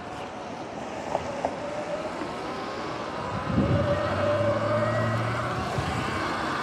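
Sur-Ron electric dirt bike riding, its motor whining and rising and falling in pitch with speed, over tyre and wind noise on wet pavement. Two light clicks come about a second in. From about three and a half seconds a louder low rumble joins as the bike speeds up and turns off onto grass.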